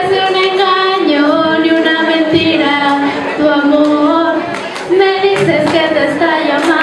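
Young female voice singing a slow song in long held notes. The melody steps down about a second in and climbs back up near five seconds.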